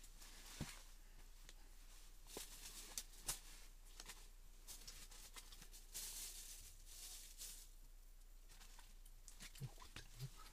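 Near silence with scattered faint clicks and a brief rustle about six seconds in, from hands handling small ice-fishing rods and tackle.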